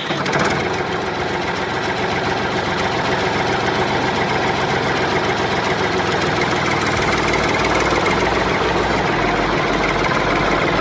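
Small engine running steadily, with a fast, even chugging.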